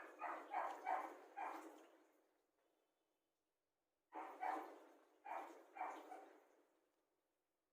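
A dog barking in two bouts: a quick run of about five barks, a pause of a couple of seconds, then four more barks.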